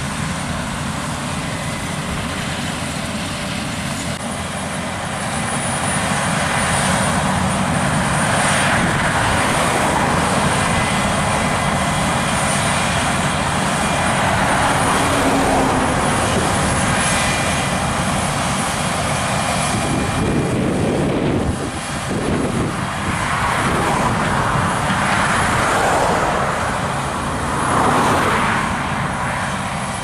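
Claas Lexion 7500 combine harvester running under load while cutting barley: a steady engine drone mixed with the rushing noise of the header and threshing gear, with a thin high whine over it. The sound swells louder several times in the last third.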